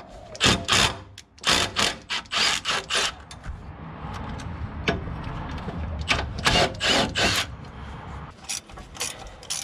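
Ratchet wrench working bolts loose, a run of short rasping strokes about half a second apart, a steadier rasping stretch in the middle, then more strokes near the end.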